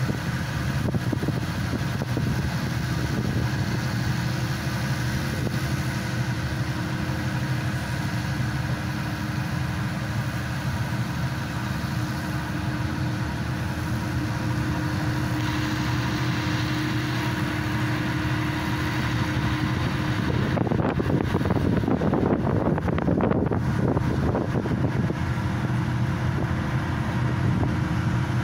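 Diesel engine and hydraulic power pack of a hydraulic static pile driver running steadily. About twenty seconds in it grows louder and rougher for a few seconds, then settles back.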